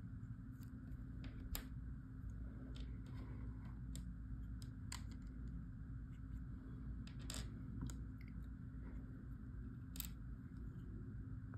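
Faint scattered clicks and taps as plastic toy gems are picked out of a jar of play dough and set down on a tabletop, with fingers handling the plastic jar, over a low steady hum.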